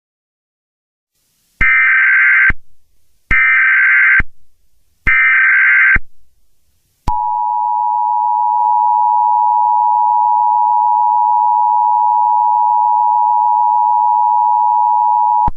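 Emergency Alert System tones. Three short bursts of the screeching digital header data come about a second apart. Then the two-tone attention signal holds steadily for about eight seconds and cuts off sharply, announcing an emergency broadcast about to be read.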